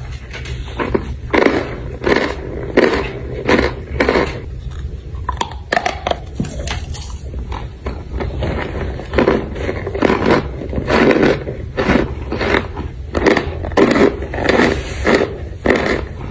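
Close-up chewing of hard chunks of starch: a run of crunches about two a second, easing off for a few seconds midway, then picking up again.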